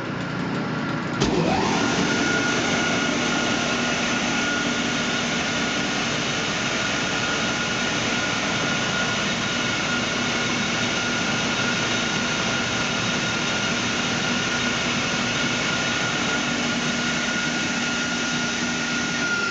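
Timesavers 100 Series 37-inch wide belt sander starting up: its 20 hp Leeson motor comes up to speed about a second in, with a quickly rising pitch. It then runs steadily, a high whine over a hum and a dense rushing noise.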